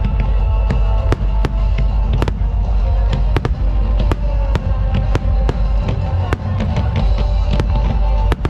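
Aerial firework shells bursting in quick succession, sharp bangs about two or three a second, over loud music.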